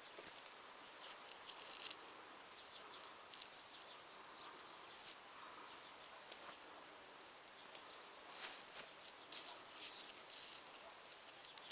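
Faint, distant birdsong: scattered short calls and song phrases. A few soft clicks or rustles can be heard, the clearest about five seconds in and again near eight and a half seconds.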